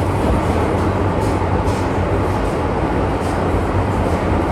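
Running noise inside an MTR M-Train carriage under way on an underground line: a loud, even rumble with a steady low hum.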